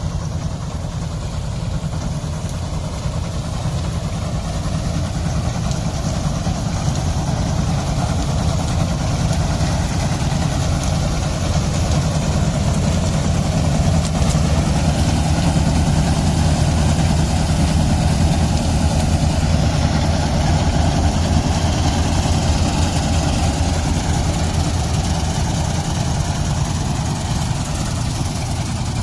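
Diesel engine of a rice combine harvester running steadily, with a continuous low hum that grows somewhat louder through the middle.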